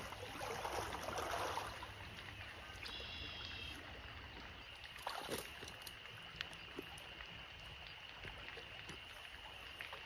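Rubber boots wading through shallow creek water, sloshing and splashing, loudest in the first couple of seconds. After that the creek's faint, steady flow remains, with a few small knocks.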